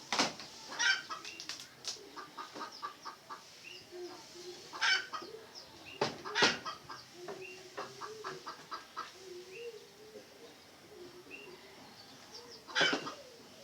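Red junglefowl clucking in quick runs of short notes, with a few loud sharp strokes: one about a second in, two in the middle and one near the end.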